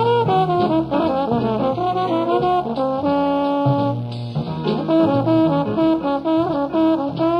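Jazz trombone playing a solo line of quick, gliding notes, with one note held for about a second around three seconds in, over a band's accompaniment.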